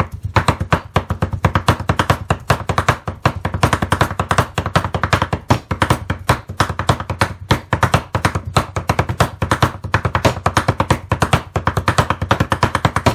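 A steel cleaver chopping and mincing raw elk meat on a wooden cutting board, striking in a fast, even rhythm.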